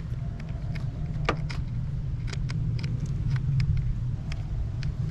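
A dozen or so light metallic clicks and clinks from hand tools and parts being handled under the hood, over a steady low rumble.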